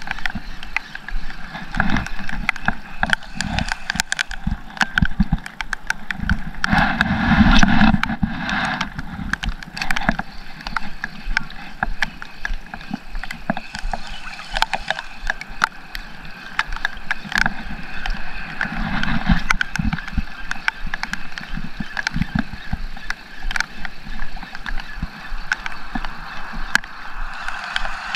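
Seawater sloshing and splashing close by, with many scattered sharp taps throughout and a louder surge of splashing about seven to eight seconds in.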